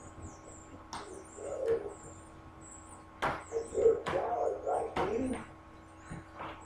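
Sharp knocks and scraping as pieces of hard floor tile are worked loose and moved by hand, loudest about three to four seconds in. Small birds chirp faintly throughout.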